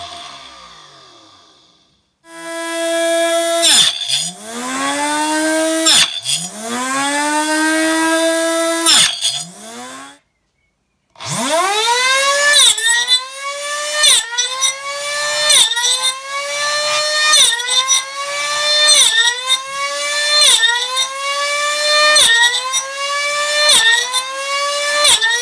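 Homemade chop saw's small electric motor and circular blade winding down and stopping, then starting up again with a high whine. Each time the blade is pulled into a wood strip the pitch drops sharply as the motor bogs under the cut, then climbs back as it clears. After a brief stop near the middle, the cuts come quickly, about one every second.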